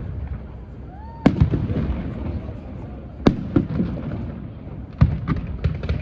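Fireworks shells bursting overhead: three loud booms about two seconds apart, each followed by a scatter of smaller cracks, with a short whistle just before the first boom.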